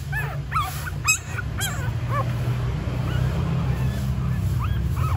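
Newborn puppies squeaking and whimpering in short rising-and-falling cries. There are several in quick succession in the first two seconds, the sharpest about a second in, and a few more near the end. A steady low hum runs underneath.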